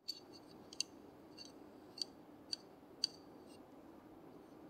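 Small bell on a cat's collar tinkling faintly: about six light, short rings spaced roughly half a second apart, over a low steady room hum.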